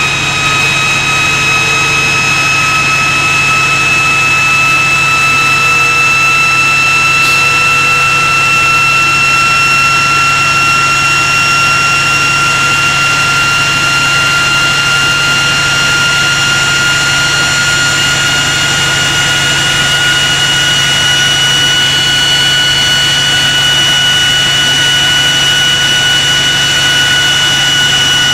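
GE Class 70 PowerHaul diesel-electric locomotive's V16 engine running hard during its self-test run-up, loading against its dynamic brake grids. A loud steady drone carries a high whine that climbs slowly in pitch as the engine works up.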